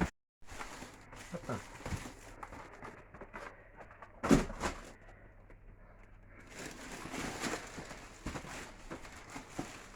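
Frozen food packages rustling and knocking as they are handled and stacked in a freezer, with one sharper knock about four seconds in.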